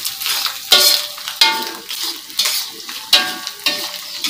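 A spatula scraping and knocking in a metal frying pan while salted fish fries in sizzling oil; the pan rings briefly at each of about four louder knocks.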